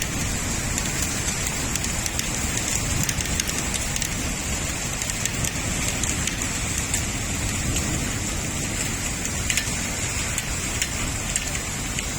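Heavy rain falling steadily in a thunderstorm, a continuous hiss dotted with the fine ticks of drops hitting hard surfaces.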